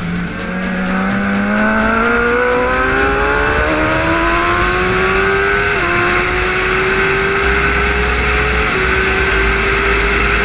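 Onboard sound of a Suzuki 1000 cc superbike accelerating hard out of a corner: the engine note climbs steadily, drops at an upshift about six seconds in, climbs again and shifts up once more near nine seconds, over steady wind rush.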